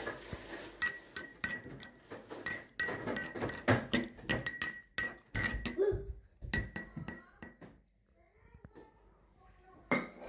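Steel pestle pounding blackberry chutney in a stainless steel mortar: a quick run of metal-on-metal clinks with a bright ringing tone. The strikes stop about seven seconds in and start again near the end.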